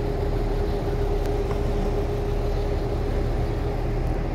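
Steady low rumble of idling and slow-moving road vehicles, with one steady droning hum running through it.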